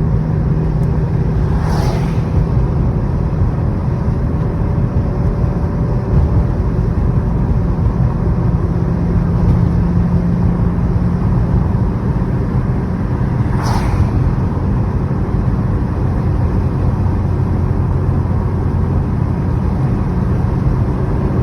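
2016 Subaru WRX's turbocharged 2.0-litre flat-four running at a steady cruise, heard from inside the cabin with road noise. Its pitch shifts slightly about halfway through. Two brief whooshes come through, one early and one about two-thirds of the way in.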